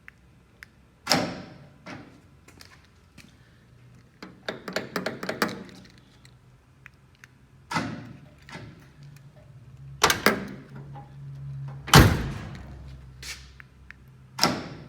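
A scattered series of knocks, clicks and thuds, with a quick run of clicks about four to five seconds in and the loudest, a heavy thud, about twelve seconds in.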